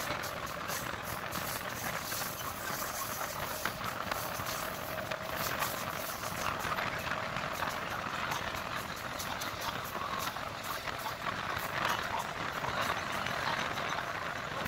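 A MEMU electric passenger train running at speed, heard from beside an open coach window: a steady rush of wheel-on-rail and wind noise with no clear pauses or changes.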